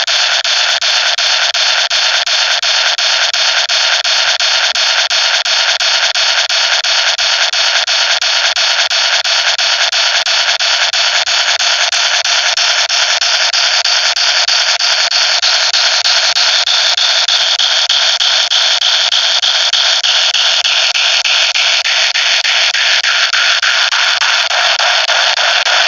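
A narrated story's audio played back at an extreme speed-up, no longer heard as words but as a dense, steady hissing buzz with a fast flutter. Through the second half a sweep slides gradually lower in pitch.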